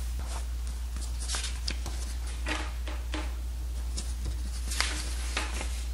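Pages of a paper instruction booklet being handled and turned, giving a run of irregular crisp rustles, with a page turn about five seconds in. A steady low hum runs underneath.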